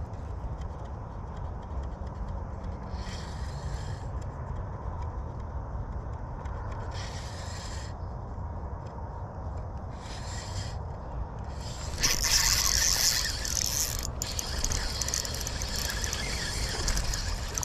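Spinning reel cranked during a lure retrieve, a mechanical scraping whir that comes and goes in patches about a second long. About two-thirds in it turns much louder and harsher and keeps going, as a hooked bass is reeled in against the bent rod.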